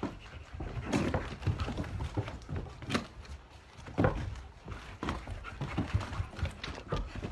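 Shuffling footsteps and scattered knocks on a concrete floor, uneven in rhythm, the loudest about four seconds in, with others about one and three seconds in.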